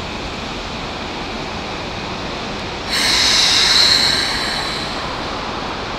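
Keikyu 1000-series electric train standing at the platform with a steady background hum; about three seconds in, a loud hiss of compressed air bursts out and fades away over a couple of seconds.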